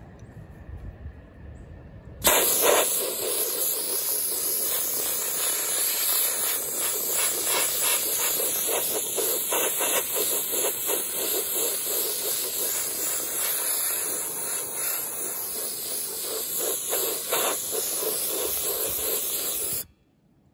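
Harbor Freight hopper-fed blast gun spraying abrasive media with compressed air onto a painted cast iron base. A loud, steady hiss starts about two seconds in and cuts off sharply just before the end, when the trigger is released.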